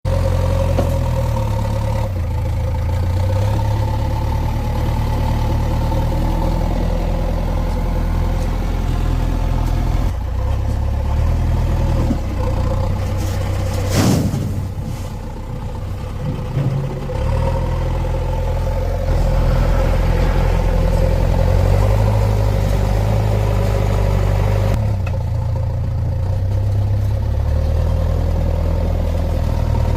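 JCB 3DX backhoe loader's diesel engine running steadily, with a steady whine over the engine note. About halfway through there is one sharp bang, after which the engine sound drops for a few seconds before it picks up again.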